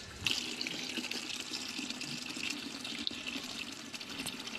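Tap water running in a steady stream and splashing into a basin, starting about a quarter second in.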